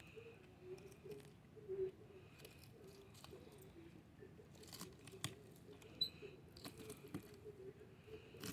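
Fillet knife slicing a redfish along its bones and through the scaled skin: faint scraping and tearing with scattered sharp clicks.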